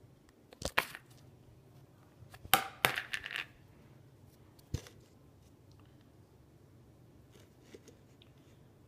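A few sharp knocks and clatters of a plastic powder canister being handled on a stone countertop. The loudest cluster, with a brief rattle, comes about two and a half to three and a half seconds in, and a single click follows near five seconds.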